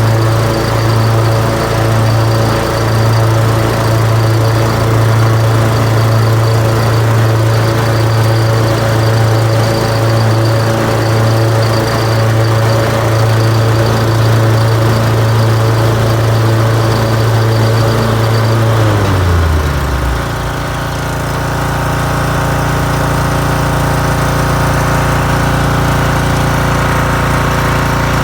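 Mower engine running with the blades engaged, a constant high-pitched ringing tone sounding over the engine note. About two-thirds of the way through, the ringing stops and the engine note drops to a lower steady pitch.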